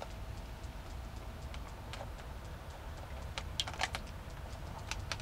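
Marinated bulgogi pouring from a plastic tub onto a hot griddle, crackling and popping with scattered utensil scrapes. The loudest burst of sharp crackles comes about three and a half seconds in, over a low steady rumble.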